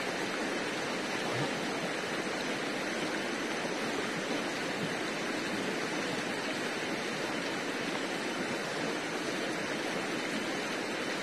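River water rushing steadily over stones: an even, unbroken rush.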